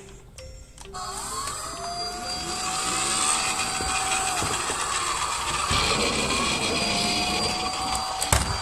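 A short jingle of stepping notes, then from about a second in a police siren wailing with slow rising glides over a steady rushing noise, and a sharp knock near the end.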